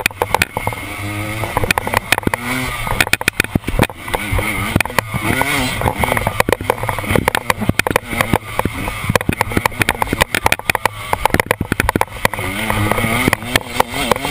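KTM dirt bike engine revving up and down as it is ridden hard along a rough wooded trail, the pitch repeatedly climbing and dropping with throttle and gear changes. Frequent sharp knocks and clatter come through as the bike jolts over the rough ground.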